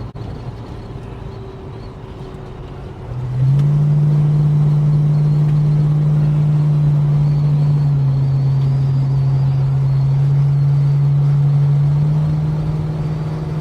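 Holden HK's engine running while driving. About three seconds in it gets much louder as the throttle opens, holds a steady low drone, then eases off somewhat near the end.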